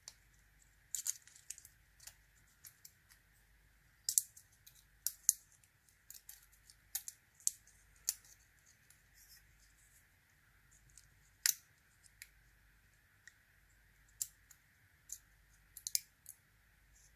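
Sharp, irregular small metallic clicks and taps from the parts of a gutted American Lock A1100 padlock and a lock-picking tool being handled as the lock is put back together.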